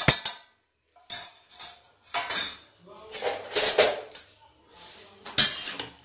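Steel kitchenware clinking and scraping: a small steel bowl tapped with a spoon as ground spices are knocked out of it into a steel pan, then the pan handled and a spoon set against it, with a sharp clank a little over five seconds in.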